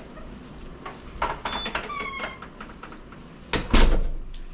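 A door squeaking on its hinges for about a second, with small knocks around it, then a loud thump about three and a half seconds in as it shuts.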